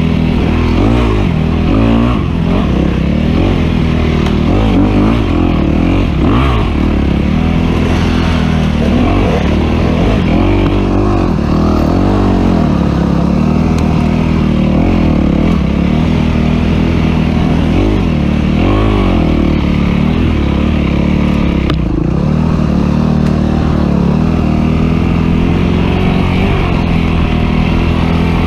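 Off-road dirt bike engine being ridden hard, loud throughout, its revs rising and falling constantly as the rider works the throttle through the gears, with a few sharp knocks from the bike over rough ground.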